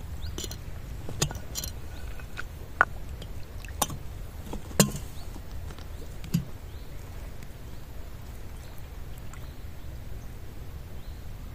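Floodwater of the swollen River Váh rushing steadily close by, with several short sharp splashes or taps, the loudest a little under five seconds in.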